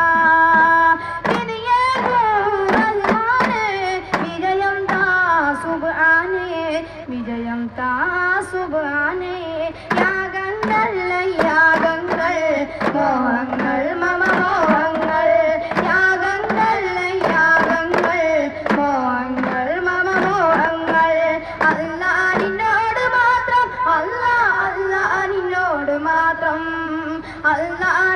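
A devotional song in Malayalam sung as a melodic, ornamented vocal line, accompanied by frequent strikes of hand-held frame drums (daf).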